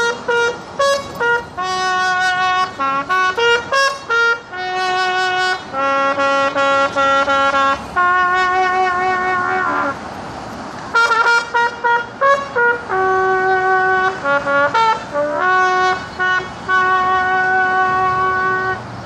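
Solo trumpet playing a slow melody of held notes, in two phrases with a pause of about a second in the middle.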